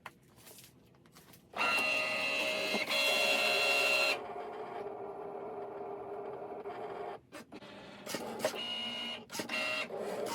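Cricut cutting machine cutting a printable magnetic sheet: its motors whir with several pitched whines as the carriage and mat move. The whir gets loud a little under two seconds in, drops to a quieter run after about four seconds, stops briefly around seven seconds, then goes on in short stop-start moves.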